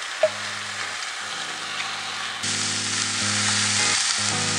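Chicken tenders sizzling in a hot greased skillet, a steady frying hiss that grows louder about halfway through; the sizzle shows the pan is properly hot. A short knock comes just after the start, and background music with held low notes plays underneath.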